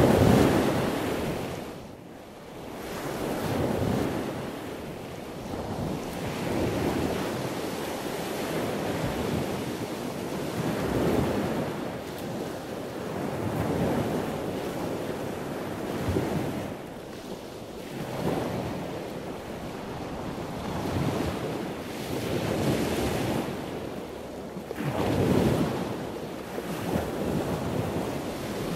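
Wind buffeting the microphone, a rushing noise that swells and fades every few seconds.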